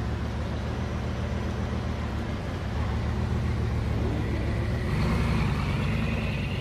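Car engine running steadily, growing louder about five seconds in, with a faint rising whine near the end.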